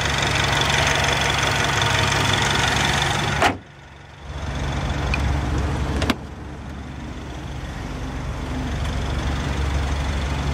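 Turbocharged four-cylinder of a 2012 Mini Cooper John Cooper Works Coupe idling steadily. About three and a half seconds in, a sharp bang as the hood is shut, after which the sound is much quieter for a moment. About six seconds in, a sharp click as the driver's door handle is pulled and the door unlatches.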